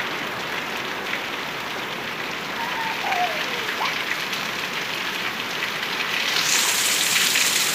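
Heavy rain pouring onto a paved street, a steady hiss that grows heavier about six and a half seconds in.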